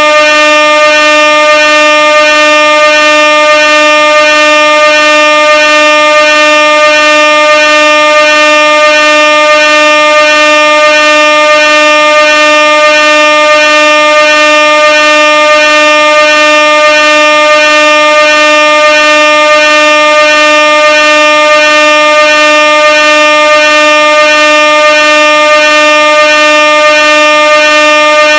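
Air horn sounding one continuous, very loud blast that holds a single steady pitch with a slight regular waver.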